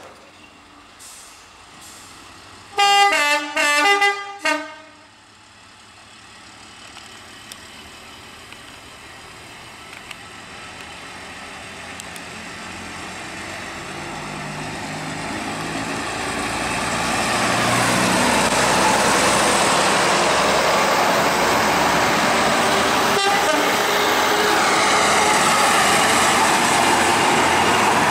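Heritage first-generation diesel multiple unit sounding three short horn blasts about three seconds in, then its diesel engines pulling away, growing steadily louder until it passes close by.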